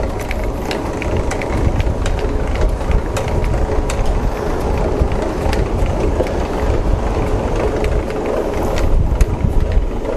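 Camper trailer's hand winch being cranked to lower the lid over, its gears and cable clicking irregularly over a steady low rumble.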